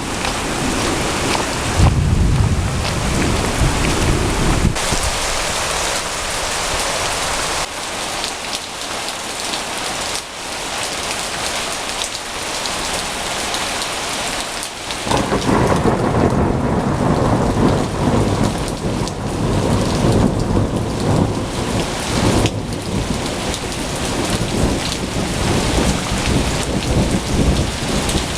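Heavy rain pouring steadily in a thunderstorm. Thunder rumbles about two seconds in, and a long, loud roll of thunder begins about halfway through and keeps rolling.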